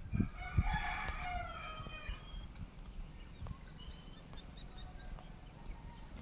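A rooster crowing once, a call of about two seconds that slides down in pitch at its end, over a few low thumps. Faint short chirps of small birds follow.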